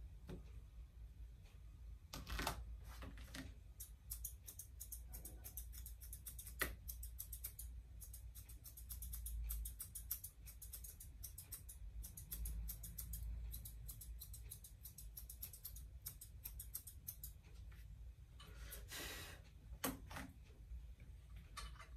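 Grooming scissors snipping through a Persian cat's long tail fur, a long run of quick faint snips, with a couple of louder rustles of fur being handled, over a low steady room hum.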